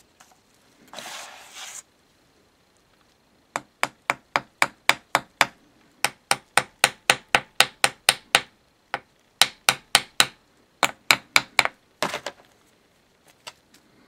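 Rapid sharp taps on a furnace blower motor, about four a second in several runs with short pauses between them. A brief scraping rub comes about a second in.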